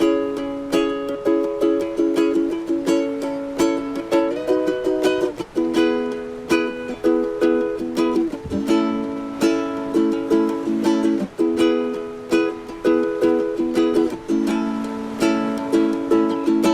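Instrumental ukulele music: plucked and strummed chords in a steady, gentle rhythm, about two to three strokes a second.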